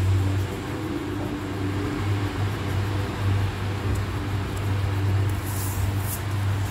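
A steady low mechanical hum, like a motor running, with a short rustle about five and a half seconds in.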